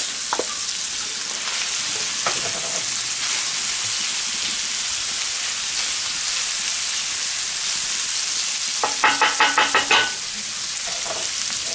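Diced bacon and onions sizzling steadily in a hot cast-iron pan, stirred with a wooden spatula. Near the end comes a quick run of about seven short, evenly spaced strokes.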